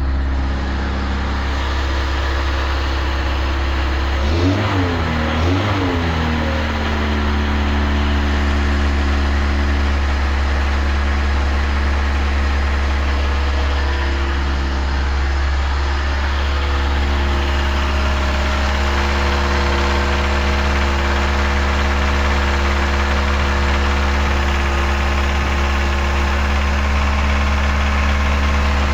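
Car engine idling with a knock from under the valve cover, revved briefly twice about four to six seconds in. The owner puts the knock down to a valve-train part at the top of the head worn shiny after oil pressure was lost.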